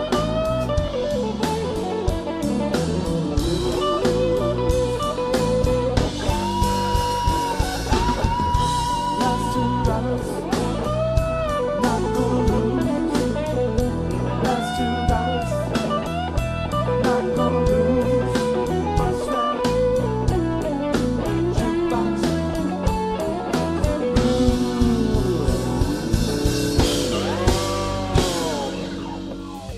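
Live blues band playing an instrumental passage: an electric guitar solo with bent notes over the drums. The music fades out near the end.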